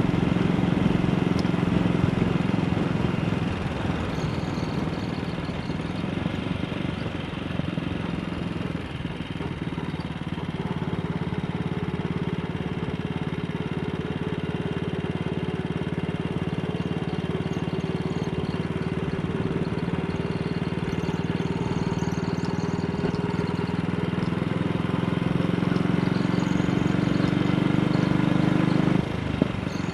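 AJS Model 8 single-cylinder motorcycle engine running under way. The engine eases off a few seconds in, then pulls steadily with its pitch slowly rising, and drops abruptly near the end.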